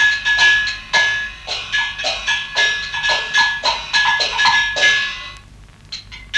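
Music carried by quick, evenly paced metallic percussion strikes with a bright ringing tone. It breaks off about five seconds in, leaving a few scattered hits.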